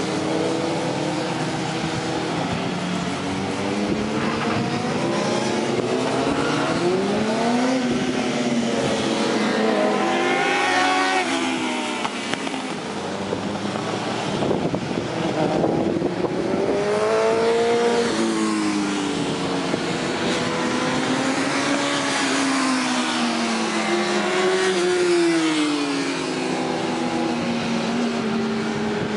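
Several sport motorcycles racing close together, their engines revving up and down as they brake for corners and accelerate out of them. The overlapping engine notes rise and fall many times.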